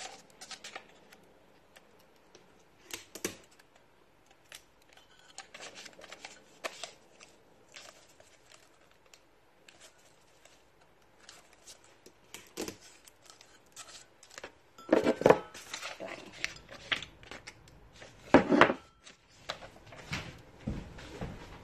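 Paper rustling and small handling clicks as a printed transfer sheet is wrapped around a bone china mug. There are two louder bursts of rustling, one about two-thirds of the way through and another near the end.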